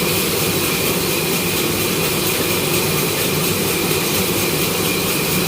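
Sawmill wood-cutting saw running steadily, a constant machine drone with a steady high whine.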